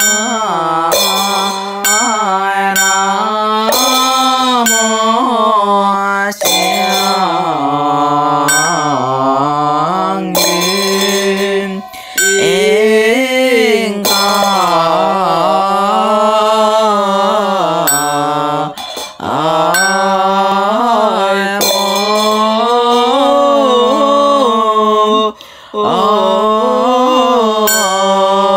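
Chinese Mahayana Buddhist liturgical chanting: a slow, melismatic sung chant with long held notes that rise and fall in pitch, broken by brief breaths. A light percussion strike keeps time about once a second.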